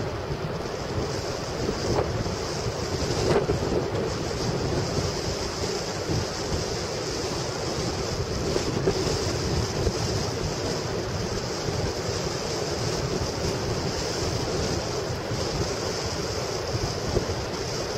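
Wind buffeting the microphone in a fluctuating low rumble over the steady wash of surf breaking on the beach.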